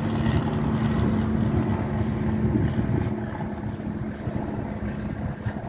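Single-engine light propeller aircraft passing overhead, a steady engine and propeller drone that eases off a little after about three seconds.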